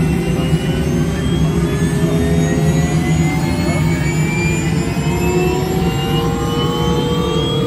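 Helicopter turbine engine starting up, heard inside the cabin: a steady low hum under a whine that rises slowly and evenly in pitch as the turbine spools up.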